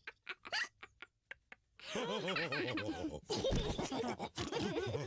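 Cartoon characters laughing: a few short giggles at first, then from about two seconds in several voices, one of them deep, laughing together.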